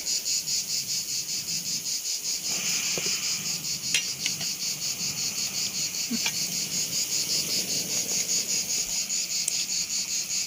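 Insects chirping in a fast, even pulse of about five chirps a second, over the sizzle of lokma dough balls deep-frying in hot oil, with a few light clicks.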